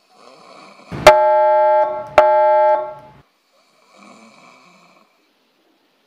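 Two loud electronic keyboard stings, each a held chord with a sharp start, the second about a second after the first. Faint snoring breaths come before them and again near the end.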